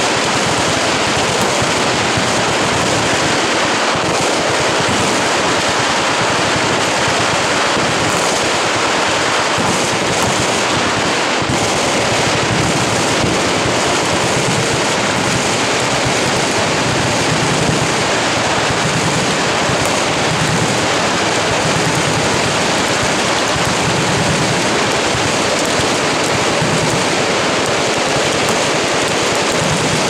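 Massed automatic gunfire from many machine guns firing at once along a shooting line, the shots blurring into one continuous, unbroken roar.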